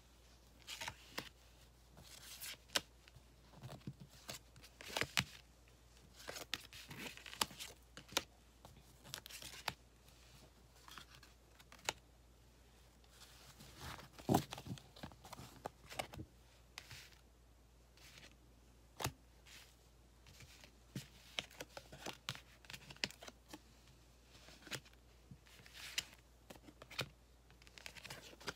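Paper tarot cards being gathered, shuffled and dealt onto a cloth: soft sliding swishes mixed with many irregular sharp snaps and taps of card on card. The loudest snap comes a little past halfway.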